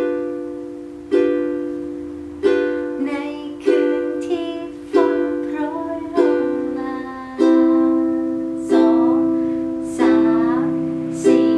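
Ukulele strummed slowly through F, G7 and C chords, one down-strum about every second and a quarter, each chord left to ring and fade, with a woman singing along.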